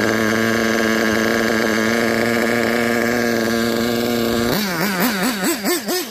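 Losi 8IGHT buggy's nitro engine idling steadily at a fixed pitch. About four and a half seconds in, the throttle is blipped in quick succession, the pitch rising and falling about four times a second as the buggy pulls away.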